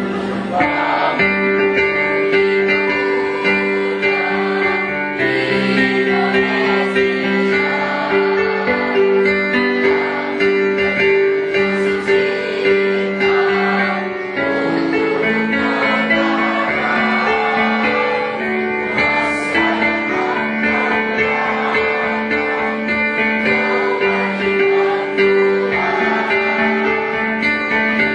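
A choir singing in parts, with long held notes, accompanied by a piano.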